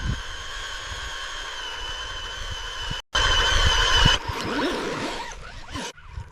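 Small RC car motor whining at a steady high pitch, with low bumps and rumble underneath. The sound cuts out abruptly about three seconds in, comes back louder for about a second, then changes, and breaks off again near the end.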